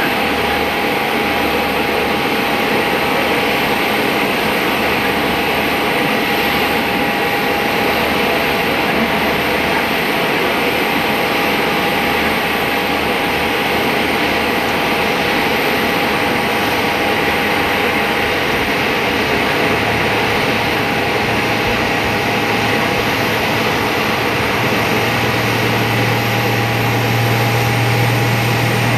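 Bombardier DHC8-Q400 twin turboprop running at high power for takeoff: a steady engine and propeller noise with a constant hum tone. A low propeller drone comes in about two-thirds of the way through and grows stronger near the end.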